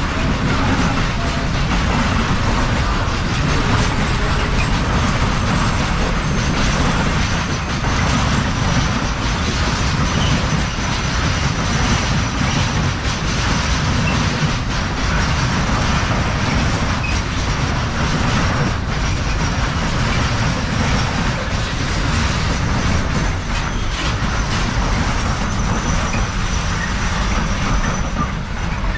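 Freight train passing, a steady rumble of wagons rolling on the rails, with a faint high whine held through most of it.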